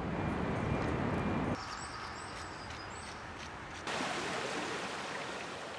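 Outdoor ambience in short cut-together pieces. First a low rumbling background, then from about a second and a half in, quieter air with about four short bird chirps. From about four seconds in, a steady hiss.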